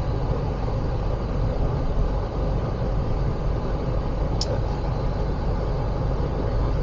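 Steady low rumble of a moving car heard from inside the cabin, road and engine noise, with one brief high tick about four seconds in.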